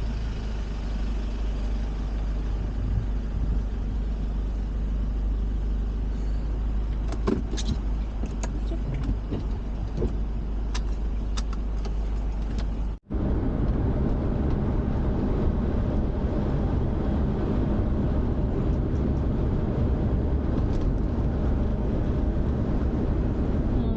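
A van's engine and road noise heard from inside the cab while driving, a steady low rumble with a few light clicks or rattles in the middle. About halfway through the sound cuts out for an instant and comes back louder, with a steadier engine hum.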